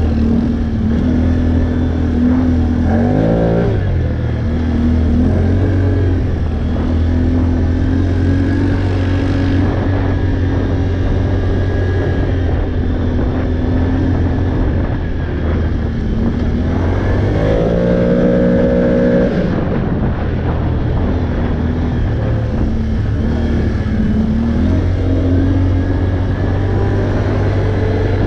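ATV engine running steadily under way on a dirt trail. The engine note rises briefly about three seconds in, then climbs again and holds higher for about two seconds before dropping back, around two-thirds of the way through.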